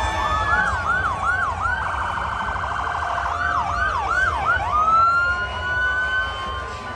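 Police vehicle siren cycling through its tones: a string of quick rising-and-falling whoops, a rapid pulsing warble about two seconds in, more whoops, then a long rising wail held high near the end.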